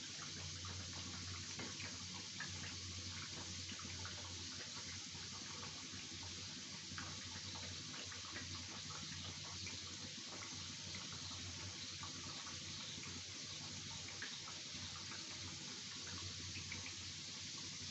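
Sattu-stuffed litti deep-frying in hot oil in an iron wok: a steady sizzle with many small crackles and pops, over a low steady hum.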